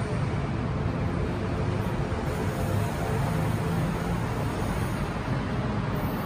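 Steady urban background rumble of traffic and city noise, with a low hum and no distinct events.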